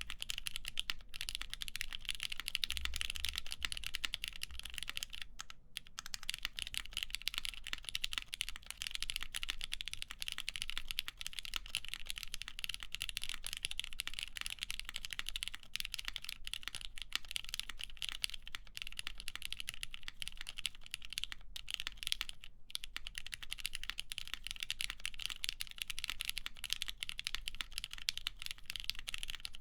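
Continuous fast typing on a custom mechanical keyboard with lubed Cherry MX Black linear switches in a full aluminum plate, GMK doubleshot keycaps clacking, with a few brief pauses.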